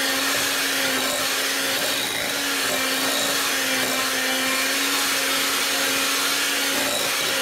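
Electric hand mixer running at a steady pitch, its twin beaters churning thick sweet tamale masa in a glass bowl.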